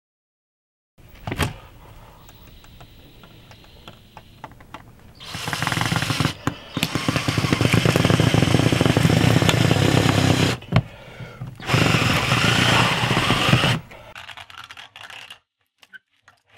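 Yellow DeWalt cordless drill with a twist bit running in two bursts, about five seconds and then about two seconds, drilling into the dog house's corner panel. Lighter handling knocks and rustles follow as the drill stops.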